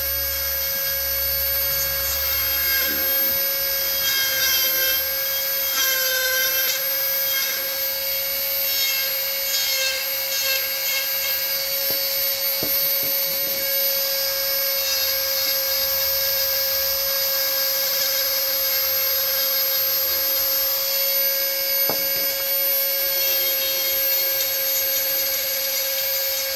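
Dremel rotary tool running steadily through its flex-shaft handpiece, a high motor whine with the burr hissing as it grinds into the wood. The pitch wavers briefly about six seconds in.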